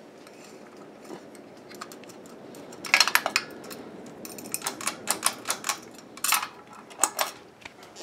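Encon Empress ceiling fan running with a steady low hum while a hand handles its light kit, setting off clusters of sharp clicks and rattles about three seconds in and again through the second half.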